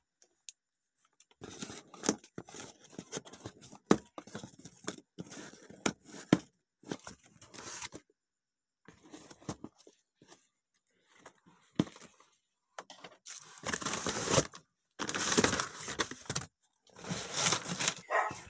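Scissors cutting and pulling at the plastic twine tied around a cardboard box, with a few sharp snips among scraping and rustling. From about two-thirds of the way in, longer and louder rustling and crinkling as the cardboard flaps and plastic-wrapped packs are handled.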